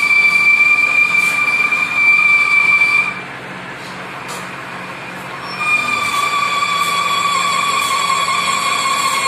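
Metal lathe cutting a large steel disc, the cutting tool giving a loud, steady high-pitched metal-on-metal screech over the running machine. The screech stops about three seconds in and starts again near six seconds in.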